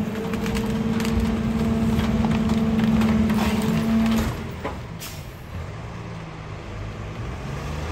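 Rear-loading garbage truck cycling its packer: a loud, steady hum from the engine and hydraulics holds for about four seconds and then cuts off, over the truck's low idle. A single sharp click follows about a second later.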